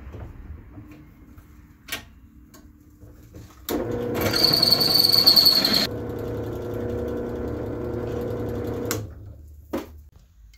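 Benchtop drill press starting up a few seconds in and its bit cutting into a steel plate, with a high squeal for about two seconds. The press then runs on more steadily for about three seconds and stops.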